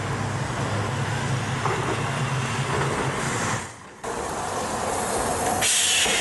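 City street traffic with a steady low hum, then, after a cut about four seconds in, a Hiroden 800-series streetcar rolling across an intersection on its rails, with a loud burst of hiss near the end.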